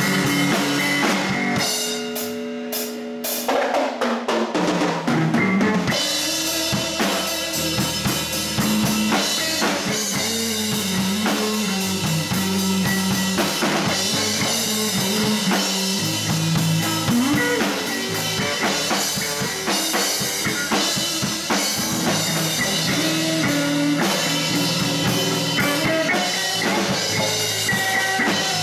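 Live blues band playing an instrumental passage on electric guitar, electric bass and drum kit. About two seconds in, the bass drops out briefly under a few drum and cymbal hits, then the full band comes back in.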